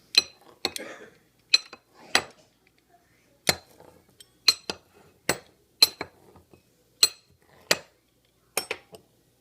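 Pizza cutter rolling through pancakes and clinking against the plate underneath: about a dozen sharp, ringing clinks at uneven intervals, one or two a second.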